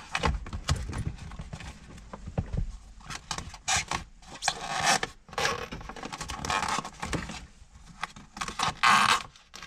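Hands working a rubber sound-insulating boot down over a short-throw shifter: irregular rustling, scraping and rubbing, with small clicks and knocks.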